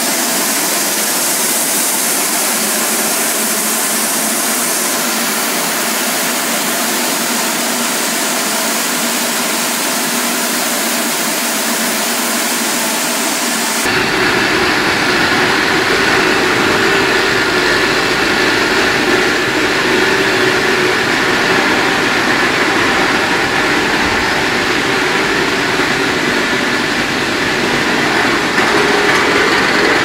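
Industrial microwave tunnel dryer running: a steady mechanical hiss of fans and drive. About 14 seconds in the sound changes abruptly to a deeper, fuller hum with a couple of steady tones.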